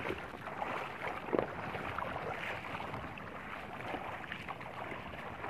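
Feet wading through shallow seawater, sloshing steadily with a few small splashes.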